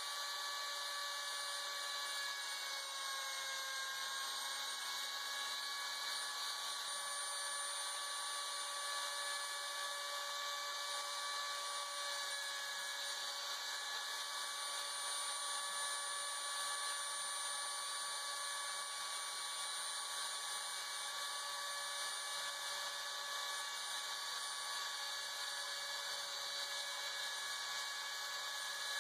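Homemade CNC router milling a white plastic plate: the spindle motor gives a steady high whine over the hiss of the end mill cutting. Under it, the axis stepper motors hum low, starting, stopping and changing pitch every few seconds as the cutter moves from one path to the next.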